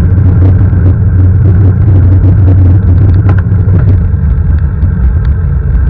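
Steady, loud low rumble of a small vehicle riding along a street.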